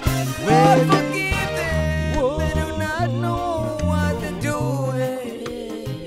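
Live Afropop band performance: a sung vocal melody over keyboards, low bass notes and drums.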